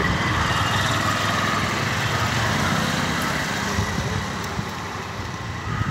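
A vehicle engine running steadily close by, with street noise.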